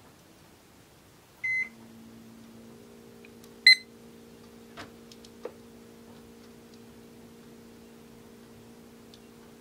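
Home weather-station console beeping twice as it powers on, a short high beep followed a couple of seconds later by a shorter, louder one. A steady low electrical hum comes on right after the first beep, with a couple of faint clicks after the second.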